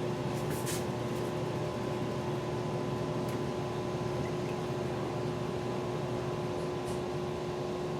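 A steady machine hum holding one constant tone, with a few faint light clicks.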